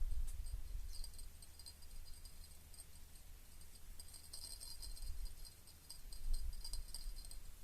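Faint, high-pitched chirping in rapid repeated pulses, densest about four seconds in and again near the end, over a low rumble.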